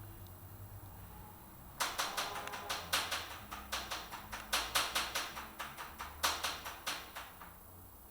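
An irregular series of sharp percussive strikes, about three a second, starting about two seconds in and stopping shortly before the end.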